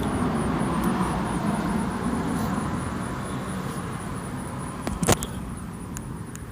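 A steady low rumble that slowly fades, with a sharp click about five seconds in and a few fainter clicks.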